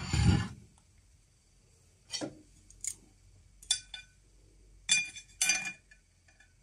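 A ceramic plate set down on a wooden board with a knock, then a handful of light, sharp clicks and clinks as wooden chopsticks are handled and laid against the plate.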